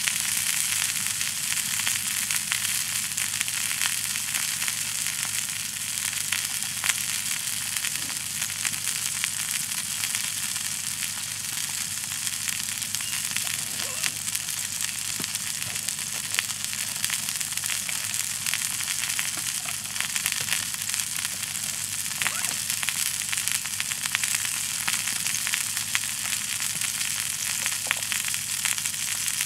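Bacon-wrapped chicken and potatoes sizzling in a cast-iron skillet over a wood campfire, with the fire crackling: a steady hiss dotted with many small pops.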